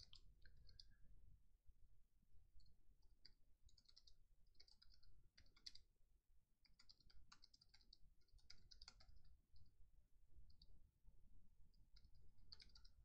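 Faint, irregular keystrokes on a computer keyboard as a sentence is typed.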